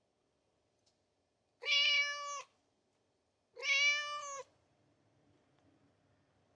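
Domestic cat meowing twice, two drawn-out meows about two seconds apart, each under a second long.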